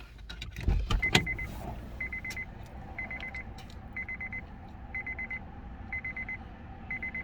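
An electronic beeper sounding: short bursts of rapid high-pitched beeps, repeating about once a second. The beeping starts about a second in, right after a thump and a sharp click.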